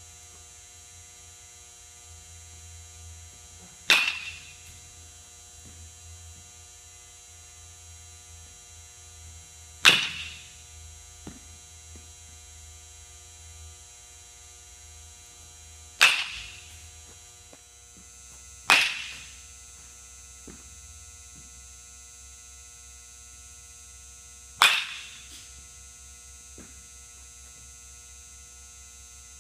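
Five sharp cracks of a baseball bat hitting the ball, several seconds apart, each with a short ringing tail, over a steady electrical hum.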